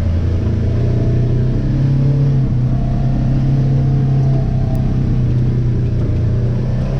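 A vehicle engine running under way, its pitch rising about two seconds in and then holding steady.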